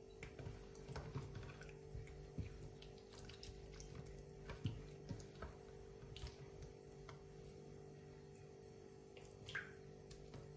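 Quiet wet squelching and small clicks of hands rubbing raw chicken legs through a runny marinade in a glass baking dish, irregular and coming in little bursts, over a faint steady hum.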